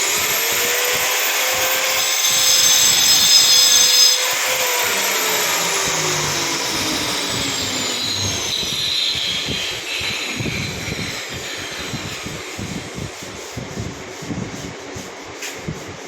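An electric power tool's motor spins up and runs with a steady whine, louder with extra noise for a couple of seconds as it works the material. It is then released and winds down, its pitch falling for several seconds. Scattered low knocks and rubbing follow.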